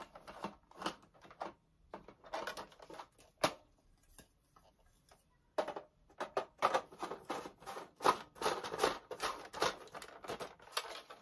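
Hard plastic parts of a Buzz Bee Air Warriors Snipe toy foam-dart blaster clicking and rattling as it is handled and its orange barrel extension is fitted. There is one sharp click about three and a half seconds in, and the clicking grows busier from about halfway.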